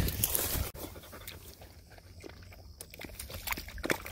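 Dog panting, after an abrupt cut less than a second in.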